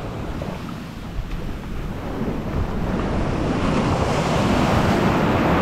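Ocean surf breaking and washing up in the shallows around a wading angler, a steady rushing wash that grows louder through the second half as a wave comes in.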